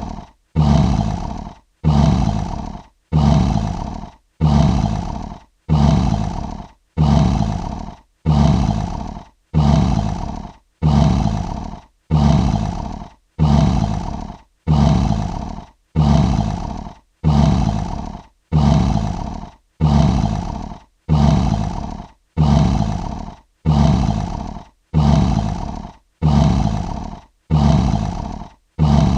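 A short lion roar sound effect looped over and over: the same burst repeats about once a second, each one starting loud and fading out before a brief gap.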